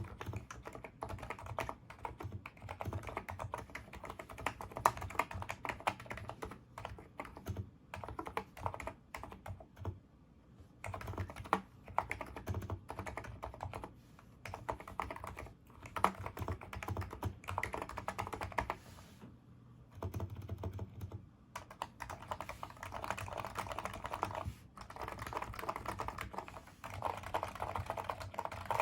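Typing on a NIZ Micro82 electro-capacitive keyboard with 35 g switches: a steady run of keystrokes with two short pauses, about ten and twenty seconds in.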